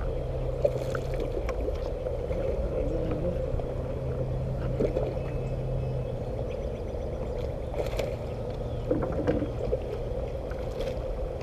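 Water gurgling and lapping along a kayak's hull as a steady low rush, with scattered small clicks and knocks from the rod and reel while a bass is reeled in.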